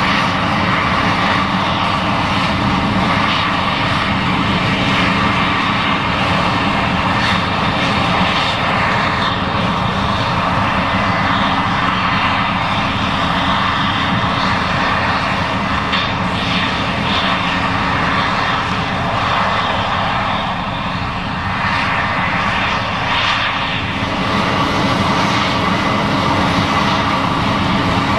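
Case IH 7140 Axial-Flow combine running steadily while harvesting corn: a loud, continuous engine and machinery drone, easing slightly about three quarters of the way through.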